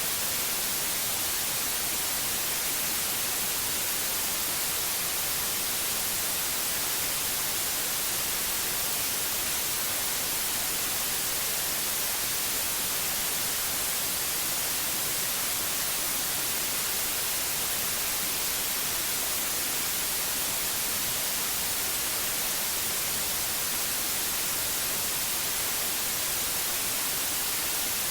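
Steady white noise: an even, unbroken hiss, strongest in the high frequencies, with no hum or pitch in it.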